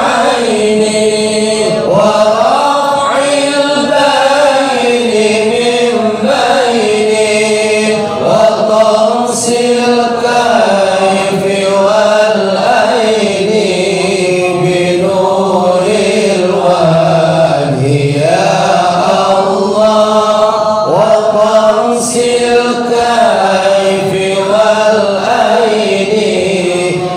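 A congregation chanting together in unison, a sustained melodic Islamic devotional recitation whose pitch rises and falls in long phrases.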